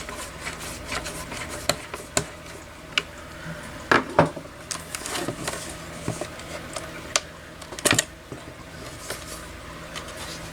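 Irregular small clicks, taps and scrapes of a screwdriver working at a Phillips screw in the plastic housing and mounting bracket of a Potter SH1224 horn/strobe, with the housing being handled. The two loudest knocks come about four and eight seconds in, over a faint steady hum.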